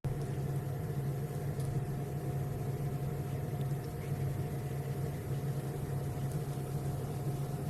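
Midea MA200W95 top-load washing machine running, a steady low motor hum with a faint higher whine.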